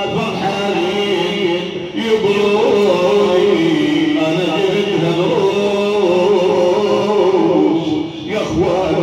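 An elderly man's voice chanting a mourning lament (na'i) into a microphone, drawing out long, wavering notes with no clear words. The voice drops away briefly near the end, then resumes.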